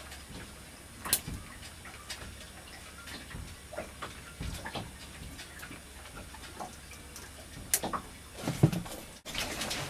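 Snap ring pliers working the snap ring on a Sherwood water pump impeller shaft: light metal clicks and small scraping sounds, with sharper clicks about a second in and again near the end.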